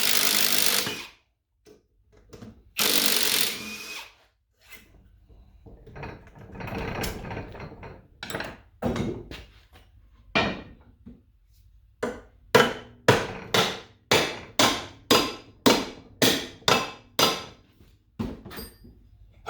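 A power drill runs in two short bursts while the back of an electric motor is taken apart, followed by softer handling noise. From about twelve seconds in, a run of about a dozen sharp hammer strikes, roughly two a second.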